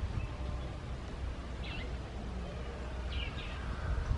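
Outdoor ambience: a bird gives short chirps twice, over a steady low rumble.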